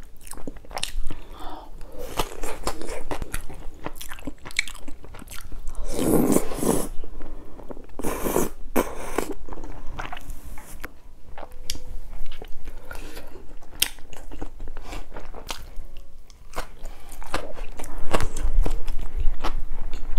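Close-miked chewing and biting of spicy tteokbokki rice cakes, with some crunchy bites and irregular clicking mouth sounds, louder about six and nine seconds in.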